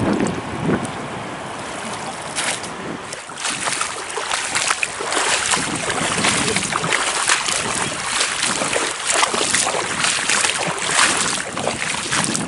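Shallow river water splashing and rushing, getting busier and more broken after a couple of seconds, with some wind on the microphone.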